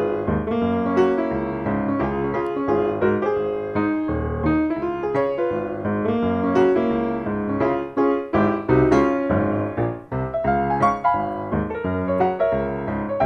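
Background piano music: a light tune of many quick notes.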